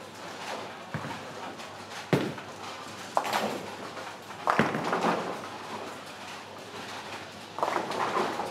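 Bowling pins crashing as balls strike them on the lanes, with several sharp clattering hits, the loudest about two and four and a half seconds in. Underneath is the rumble of balls rolling down the lanes.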